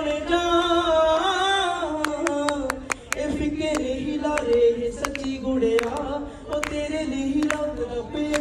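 A man singing a slow melody into a handheld microphone, holding long notes that slide from one pitch to the next. Sharp taps join in from about two seconds in.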